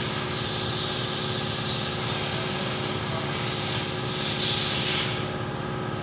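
Steady hiss of compressed air, swelling and easing every second or two over a faint steady machine hum; the hiss drops away near the end.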